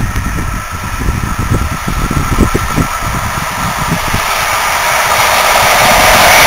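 PKP EU07 electric locomotive hauling a passenger train, approaching at speed: its rushing noise grows steadily louder over the second half as it nears. Wind buffets the microphone in the first half.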